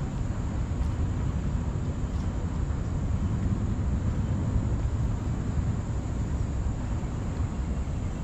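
Steady low rumbling background noise with a faint hiss and no distinct events.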